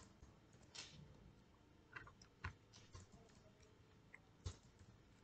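Near silence with about six faint, scattered clicks of computer keyboard keys as a few characters of code are edited.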